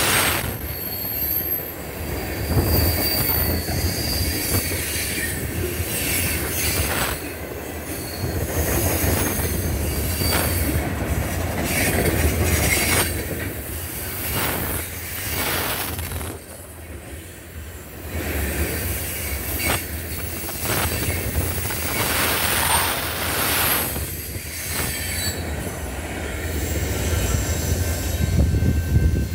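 Freight train of tank cars rolling past on a curve: wheels squealing in high, thin, wavering tones over a steady rumble, with repeated clacks of wheels over the rail joints.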